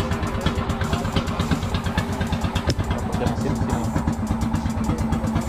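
The raft's inboard engine idling steadily under the deck, a rapid, even throb.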